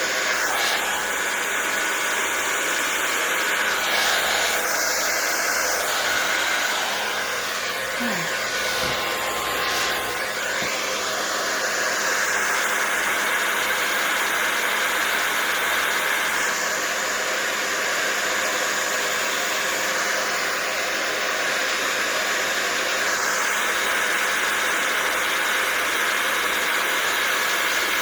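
Blow dryer fitted with a nozzle attachment running steadily, blowing wet acrylic paint across a small wood panel; its rushing air sound changes in tone several times.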